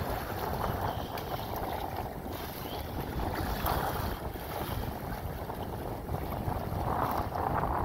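Wind buffeting the microphone, with choppy waves slapping and splashing against the bow of a Hobie Outback kayak as it pushes through rough water; the splashing swells and fades several times.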